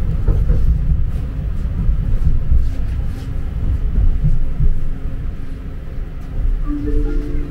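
Tram running along the street, heard from inside the car: a steady low rumble of wheels on rails and running gear, with a faint steady hum.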